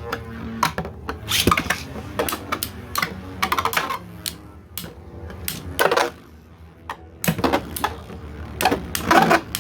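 3D-printed plastic Beyblade tops spinning and clashing in a stadium: repeated sharp clacks as they strike each other and the stadium walls, over a faint steady whir of spinning.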